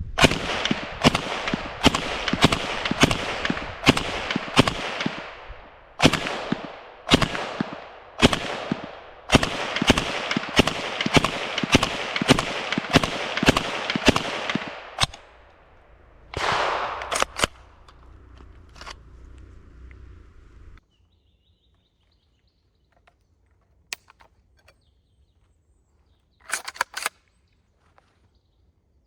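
Zastava M56 submachine gun firing 7.62x25 mm Tokarev rounds semi-automatically: a string of about thirty single shots, roughly two a second with short pauses, each echoing briefly. The shooting stops and a few faint sharp clicks follow.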